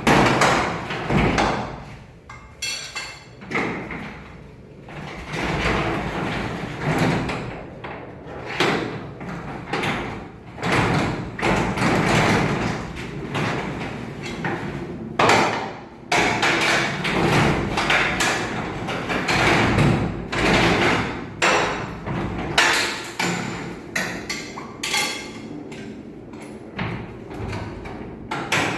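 Irregular knocks, clanks and scraping of hand tools working on a garage door's rollers and track, some strokes like hammer blows.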